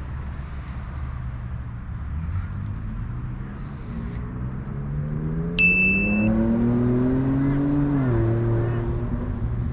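A motor vehicle's engine accelerating, its pitch climbing steadily for several seconds and then dropping at a gear change near the end before running on steadily. A short high beep sounds about halfway through, over a low rumble of wind.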